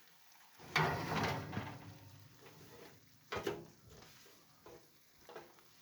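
Roasting tray being pulled out of a hot oven: a metal scrape about a second in, a sharp knock a couple of seconds later and a few lighter knocks, with the hot roast sizzling.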